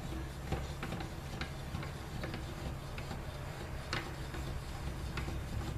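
About ten light, irregular clicks and taps of hand tools and metal parts being handled on a drill press, the loudest about four seconds in, over a steady low hum.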